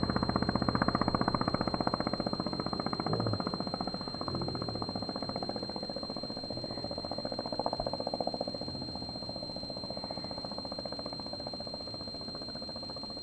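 The engine of a large radio-controlled Spitfire model running in flight with a fast, even pulsing beat, growing gradually quieter.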